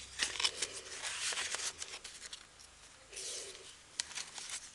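Paper and card rustling as handmade tags are handled and the pages of a junk journal are turned: a cluster of quick rustles and light taps in the first two seconds, then a softer rustle of a page turning about three seconds in.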